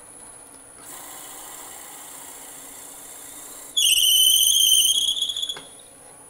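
Drill bit boring into kingwood spinning on a wood lathe: a faint steady whirr, then about four seconds in a loud, high squeal for nearly two seconds, rising slightly in pitch. The squeal is the bit rubbing in the hole, which kingwood quickly clogs and can make run hot.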